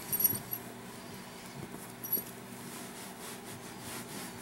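Cloth rag rubbing oil into a leather jacket: faint repeated swishing strokes, plainer from about three seconds in, with a few small metallic clinks near the start.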